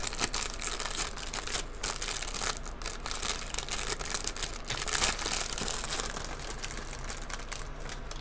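Thin clear plastic bag crinkling and crackling as fingers pick at it and pull it open, with the hard plastic sprue of clear canopy parts inside.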